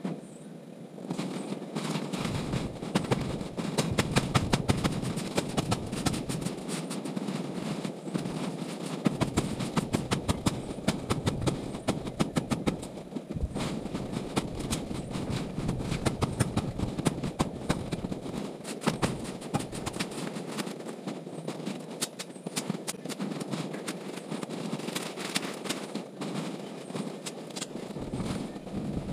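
Small petrol engine running steadily while its blade chops through dry branches, giving a dense, irregular crackle of snapping wood over the engine hum.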